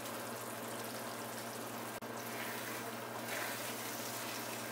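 Thick brinjal gravy simmering on a low flame in a nonstick wok, a steady soft bubbling hiss, with a momentary dropout about two seconds in.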